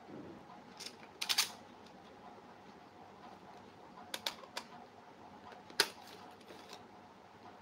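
Scattered sharp clicks and light knocks from an inline speed skate frame and its wheels being handled and set against a wooden table. There is a small cluster about a second in, another about four seconds in, and the sharpest single click about six seconds in.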